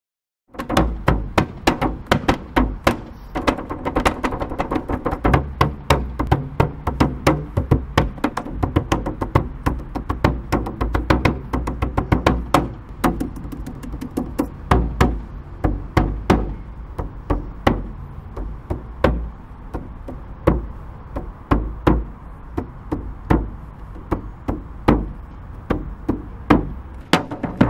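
Hand drums played in a steady, fast rhythm, several strokes a second, with sharp slaps over deep bass hits.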